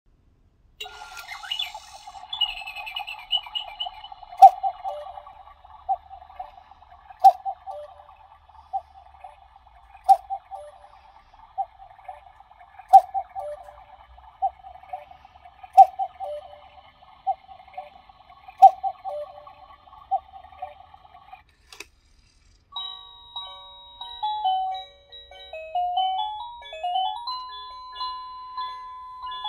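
Battery quartz cuckoo clock sounding the hour with its recorded cuckoo call, about a dozen calls spaced roughly a second and a half apart, each with a sharp click. After a short pause, about 23 seconds in, the clock's electronic melody starts playing in clear stepped notes.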